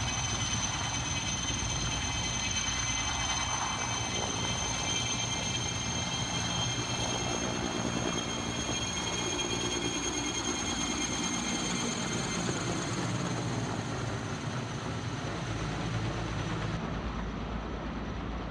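An engine or motor running steadily, with a constant high-pitched whine over a low hum.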